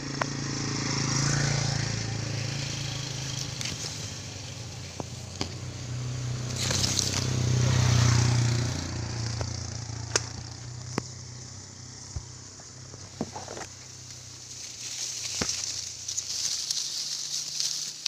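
A passing motorcycle's engine hum swells about a second in, and a vehicle's hum swells again around eight seconds in. Scattered sharp clicks and crackles run between them, and near the end leaves rustle as a hand pushes through the foliage of the nest tree.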